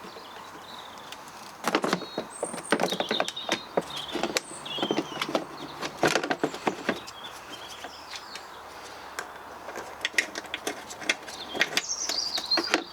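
Irregular clicks and knocks of hand tools and metal parts being handled, in two clusters, with a few faint high squeaks.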